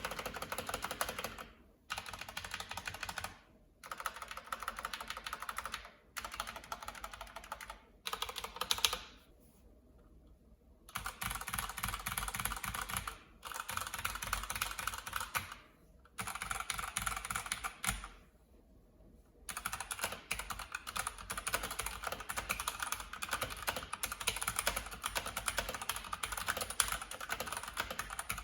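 Keychron C1 mechanical keyboard with its stock Gateron switches being typed on in a sound test: fast runs of key clacks broken by short pauses, and steady typing over the last third.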